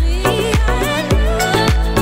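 Upbeat background music: a steady beat of deep kick-drum hits, about two a second, under a bending, wavering lead melody.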